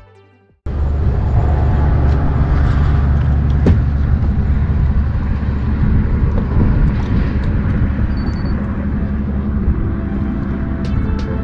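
Wind buffeting the microphone on an open bass boat: a loud, steady low rumble and rush that cuts in suddenly after the music fades. Music comes back in near the end.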